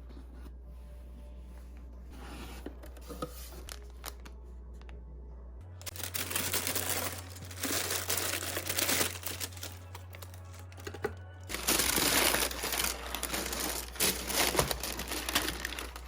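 Crinkling and rustling of packaging being handled, faint at first and then loud in long irregular stretches from about six seconds in.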